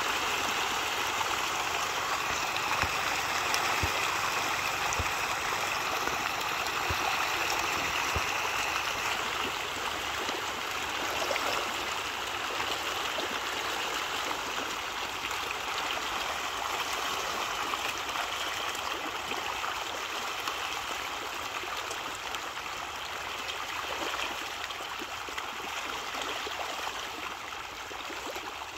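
A large shoal of fish thrashing at the water's surface in a feeding frenzy, a dense, continuous churning splash. It eases slightly over the second half.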